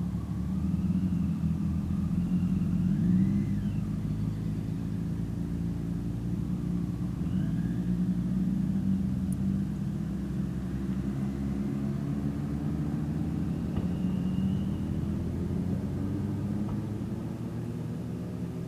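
Vehicle engine idling steadily, a low, even rumble that holds throughout.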